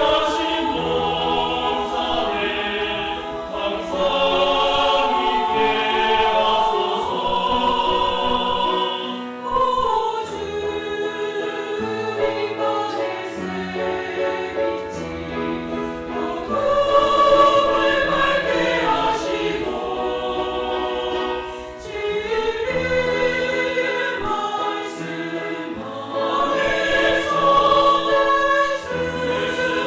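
A church choir singing in several voice parts, with long held notes that change every second or two and a brief dip in loudness between phrases.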